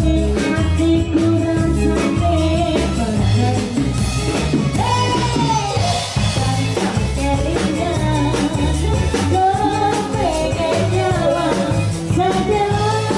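Live band music played through a sound system: a woman singing into a microphone over keyboard, guitar and drum kit, with a steady beat.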